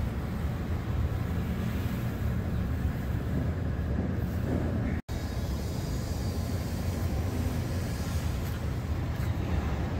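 Steady low rumble of outdoor city ambience, with no distinct events; the sound cuts out for an instant about halfway through.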